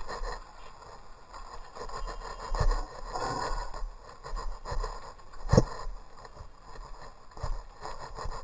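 Mountain bike rolling over a rough trail: tyre and rattling noise with several sharp knocks from bumps, the loudest about halfway through.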